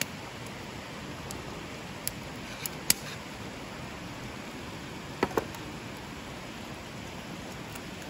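A shallow mountain river babbling over stones, a steady even rush. A few sharp clicks and taps cut through it: one about two seconds in, two near three seconds, and a close pair just past five seconds.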